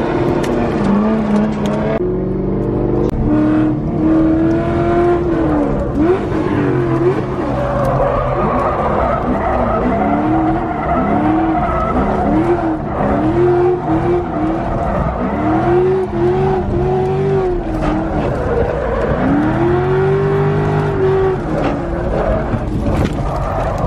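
Rear-wheel-drive Subaru Impreza's swapped Honda K-series four-cylinder engine revving up and down as the car drifts, its pitch rising and falling about once a second through the middle, with tyres skidding and squealing.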